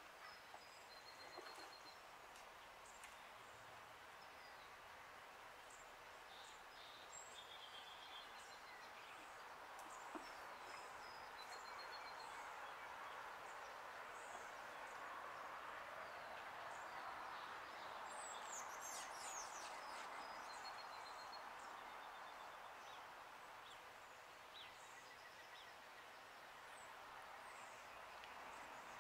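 Faint outdoor background: a steady hum that swells a little midway, with scattered high chirps and short trills of small songbirds.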